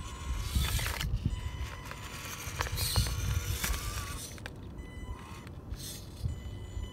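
WPL Ural RC crawler truck's small electric motor and gears whining steadily as it climbs over rocks, with several bursts of tyres scraping and crunching on stone and gravel.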